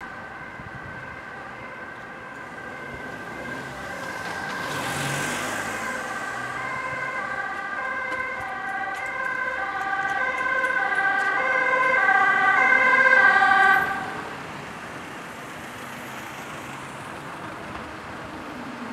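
Ambulance two-tone siren, alternating between a high and a low note about twice a second and growing louder as the ambulance approaches, then cut off suddenly about 14 seconds in. Steady traffic hum runs underneath.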